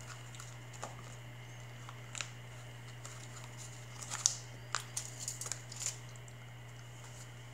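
Scattered light clicks and crinkles of MRE items being handled on a foil-lined tray, busiest in the middle with the sharpest click about four seconds in, over a steady low hum.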